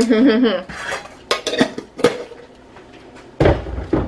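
A utensil knocking and scraping against a stainless steel pot as thick potato salad is stirred: a few sharp clicks, then a heavier thud near the end.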